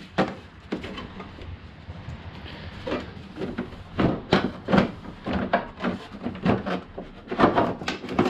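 The plastic engine cover of a Toro CCR 3650 snowblower being worked loose and lifted off, clunking and knocking against the machine in a run of irregular knocks that are loudest in the second half.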